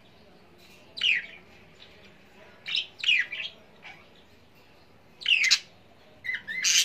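A bird calling in short, loud chirps, each sliding down in pitch. The calls come in uneven bursts a second or two apart, about five or six in all, with the densest cluster near the end.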